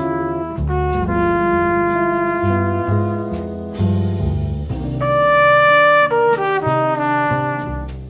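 Jazz quintet recording: a trumpet-family horn plays the melody over bass and drums with cymbal strokes. The horn rises to a long held note, the loudest of the passage, about five seconds in.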